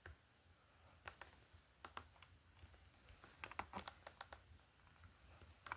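Near silence broken by faint, irregular clicks, a few single ones and a small cluster around the middle.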